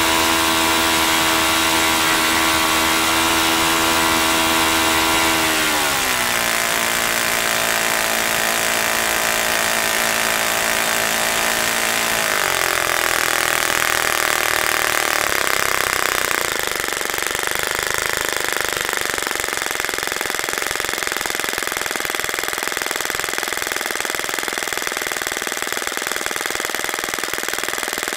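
OS FS-30 Surpass single-cylinder four-stroke glow engine running a propeller on a test stand during a performance run after a broken valve spring was replaced. It starts at high speed, drops in pitch about 6 seconds in and again about 12 seconds in as it is throttled back, and settles into a rougher, lower idle for the rest of the time.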